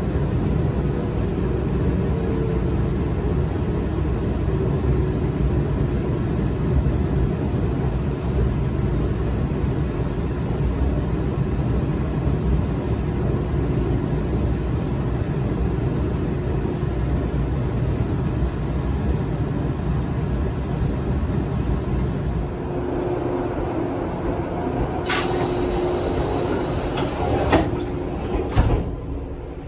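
Interior running sound of an Izukyu 2100 series resistance-controlled electric train: a steady rumble of wheels and motors, with a faint whine falling in pitch early on. Near the end a sudden high hiss sets in, followed by two sharp knocks, and the rumble then dies down.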